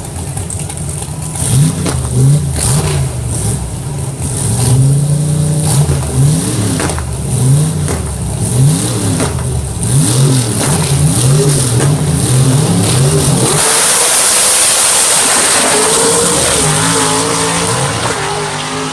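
Race car engine revving up and falling back again and again, as on acceleration out of turns and lifting into them. About two-thirds through, a loud steady rush of noise takes over, with the engine still running under it.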